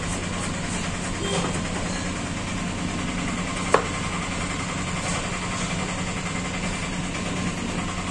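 A steady engine-like hum with a low drone, and over it the faint tapping of a knife shredding cabbage on a wooden chopping board. One sharp knock comes nearly four seconds in.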